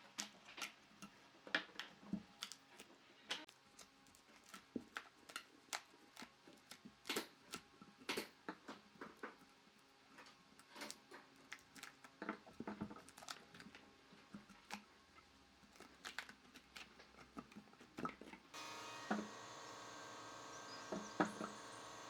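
Irregular light taps and clicks, several a second, from handwork on wood. About three-quarters of the way through, a motor starts and runs with a steady hum.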